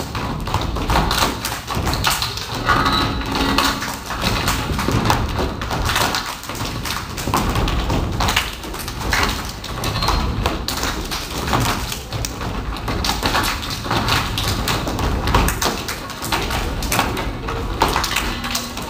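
Children's step team stepping on a wooden stage: a continuous run of foot stomps and hand claps in a step routine, many sharp thuds and slaps with no music.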